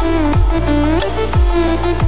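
Background electronic dance music with a heavy, regular beat and a synth melody.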